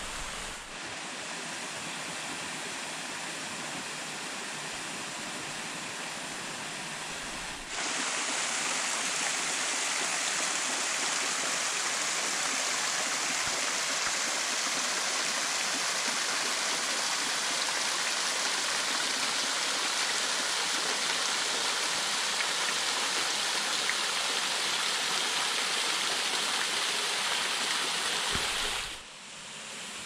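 Rushing water of a spring-fed waterfall and stream, a steady hiss. It turns abruptly louder about eight seconds in and falls away abruptly near the end.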